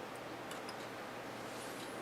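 Quiet room tone: a steady low hum and hiss, with a few faint small clicks.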